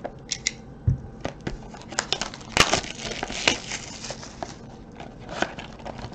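Plastic shrink-wrap being torn off and crumpled, and a cardboard trading-card box being opened: a run of sharp crinkles and crackles, loudest about two and a half seconds in.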